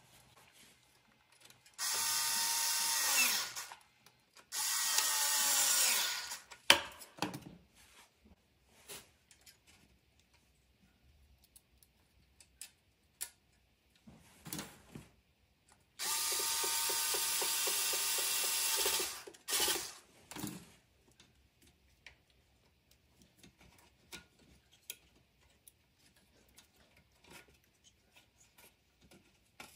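Power drill or electric screwdriver run in three short bursts, each winding down in pitch as it stops. Scattered clicks and knocks come between the runs.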